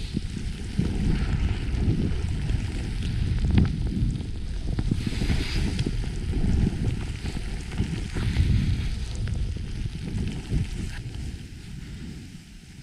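Wind rushing over the microphone during a downhill ski run, with the hiss of skis carving turns through snow swelling a couple of times. It dies down near the end.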